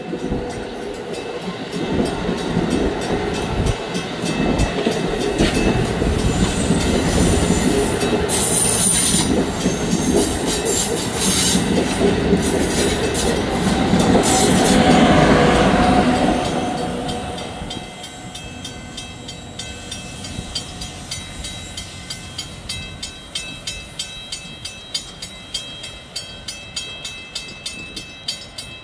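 Amtrak Acela high-speed trainset passing close by at speed: a loud, dense rush of wheels on rail that peaks as the rear power car goes by, about fifteen seconds in, then drops away over a couple of seconds. A quieter rumble with regular clicks, about three every two seconds, follows.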